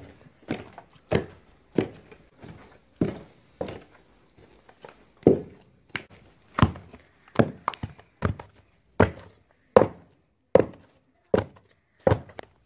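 Wooden pestle pounding cocoyams in a wooden mortar, a steady run of dull thuds about every two-thirds of a second, as the cocoyams are beaten into the smooth paste for achu.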